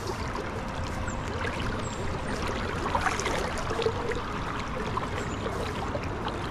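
River current running steadily, an even rush and trickle of moving water.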